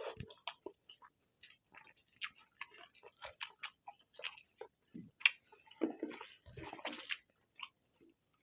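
Close-up eating of rice and egg curry: wet chewing and lip smacks, a steady scatter of short sticky clicks that thickens about five seconds in.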